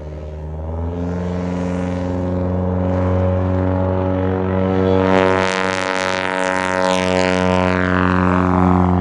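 Light single-engine propeller airplane's engine and propeller drone, growing louder over the first few seconds as it comes in close, then holding a steady pitch. A rushing noise swells in the middle as it passes nearest.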